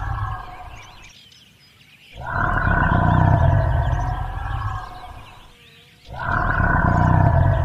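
Recorded dinosaur roar played again and again: long, rumbling roars that start sharply about two seconds in and again about six seconds in, each dying away over a few seconds, while the one before fades out at the start.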